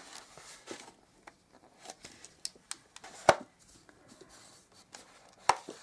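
Cotton-gloved hands knotting the tail of a latex 260 twisting balloon: faint rubbing of rubber and glove, with scattered light clicks, the sharpest a little past three seconds in and another near the end.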